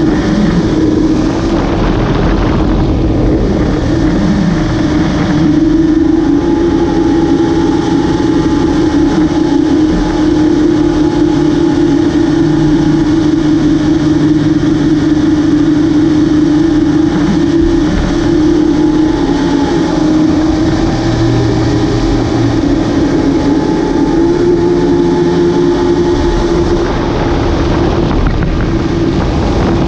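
Twin engines of a Yamaha AR230 HO jet boat running at full throttle, a loud, steady engine drone with the rush of jet thrust and spray from the stern while the boat carves turns.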